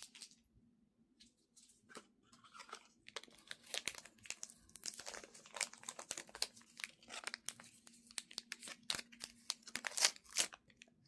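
Plastic toy packaging being crinkled and torn open by hand: irregular crackling rustles that start about two seconds in and carry on, over a faint steady hum.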